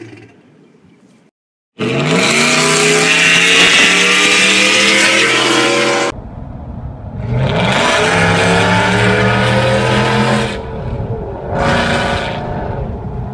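Supercharged 5.0 V8 of a 2014 Roush F-150, breathing through long-tube headers and a Corsa exhaust, revving hard in several short clips cut together. Twice the engine note climbs and then holds loud, each time stopping abruptly at a cut, and a short blip of revs comes near the end.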